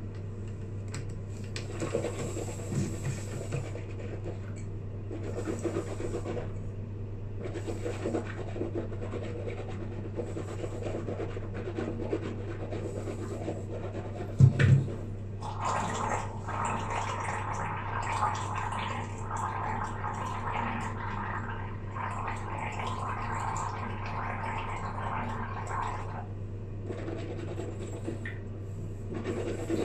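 A person rinsing and gargling with mouthwash: quiet swishing at first, a short thump about halfway, then a bubbling gargle for about ten seconds. A steady low hum runs underneath.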